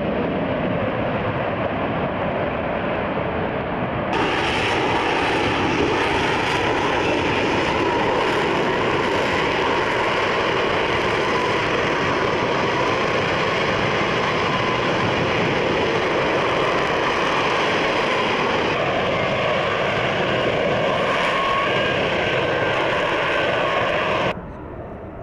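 Lockheed Martin F-35B Lightning II's Pratt & Whitney F135 jet engine running loud and steady as the fighter flies low overhead. The roar changes abruptly about four seconds in and falls away suddenly near the end.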